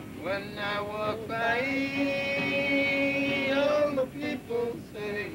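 A man singing without words picked up by the recogniser: a few short phrases, then one long held note through the middle, then a few short notes near the end.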